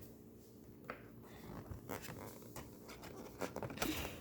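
Rustling and light tapping as the slime kit's cardboard box and instruction sheet are handled, growing busier and loudest near the end.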